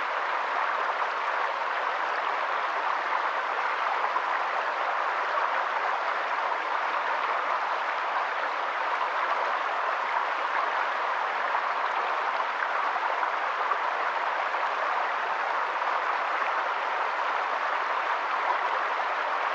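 Stream water flowing, a steady, even rush with no change in level.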